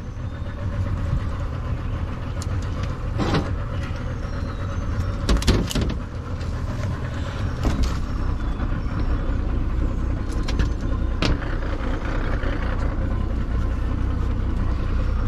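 Several sharp knocks and thuds on an aluminium jon boat's deck as a caught catfish flops and is handled, over a steady low rumble.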